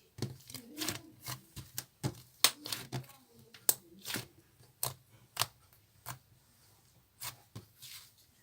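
Yellow slime being worked by hand, giving a run of sharp, irregular clicks and pops with a short lull about two-thirds through.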